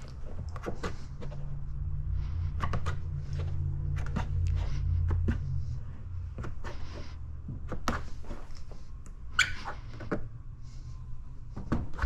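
Plastic squeegee working paint protection film down over a wet bumper edge: scattered short squeaks, scrapes and clicks. A low rumble underneath fades about halfway through.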